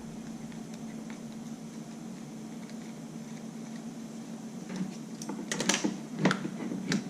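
A steady faint hum for the first few seconds, then a run of light clicks and taps from about five seconds in. These are small plastic parts being handled as a hair dryer's plug housing is unscrewed and opened.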